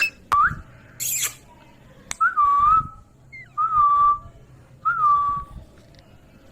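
Ringneck parrot whistling: four short whistles on about the same pitch, each sliding up and then holding, with a short harsh rasp about a second in.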